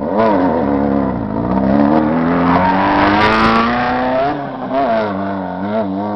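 Off-road race buggy's engine revving as it pulls away on dirt: a quick blip up and down right at the start, then a long steady climb in pitch as it accelerates, levelling off with small wavers near the end.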